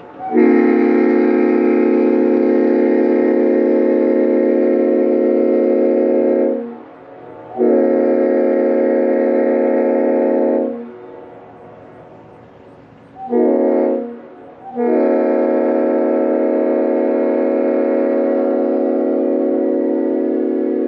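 Leslie RS5A five-chime train air horn (a reproduction S5A fitted with RS spike-back heads) sounding a very deep chord in four blasts: long, long, short, long, the railroad grade-crossing signal.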